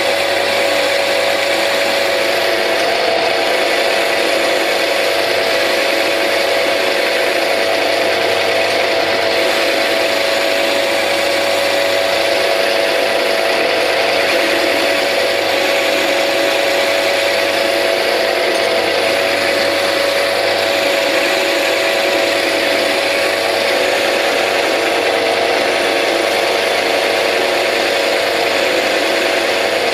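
Bernardo P 600 G metal lathe running steadily at about 560 rpm while a parting blade in a rear toolpost cuts into a steel bar: a steady whine over a constant cutting hiss, with no squeal or chatter, the sign of a clean, stable parting cut.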